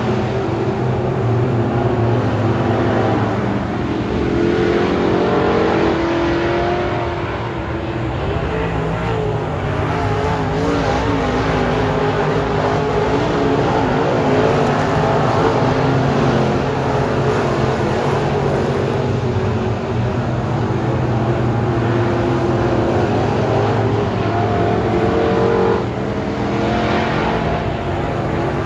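Dirt late model race cars' engines running hard around a dirt oval, the engine notes rising and falling as the cars go through the turns and down the straights.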